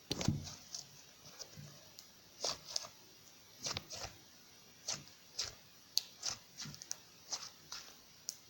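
Homemade slime being squeezed and played with by hand, giving an irregular series of short pops and crackles, the first one the loudest.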